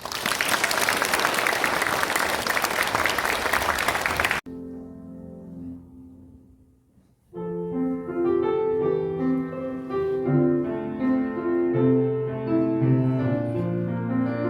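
Applause for about four seconds that cuts off suddenly, leaving a held piano chord fading away; a few seconds later a piano starts playing again, a melody over chords.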